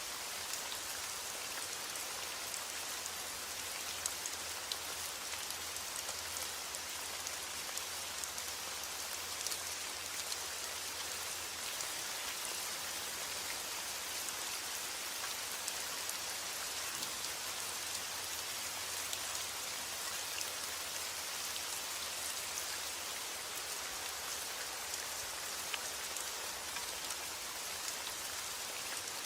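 Heavy rain falling steadily on a roof, with sharp ticks of single drops scattered through the even hiss.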